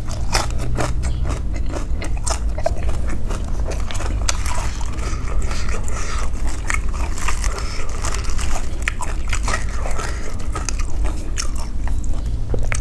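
A person chewing and biting into pork noodle soup with pork balls close to the microphone, with a steady run of small irregular wet clicks and crunches.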